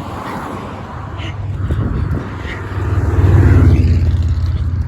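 A car driving past close by, its engine and tyre noise building to a peak about three to four seconds in and then easing off. No horn sounds.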